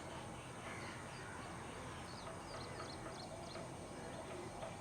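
Morning town ambience: a steady low background rumble with small birds chirping in quick runs of short, high notes.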